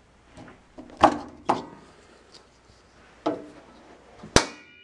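Laser printer's spring-loaded plastic lid hinge worked by hand against its stiff spring: several sharp clacks, then a loud snap near the end that leaves a ringing tone.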